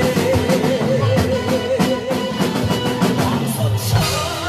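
Live band accompaniment to a trot song with a drum kit keeping the beat. A long note held with vibrato ends about two seconds in, leaving the drums and backing to fill the gap between sung lines.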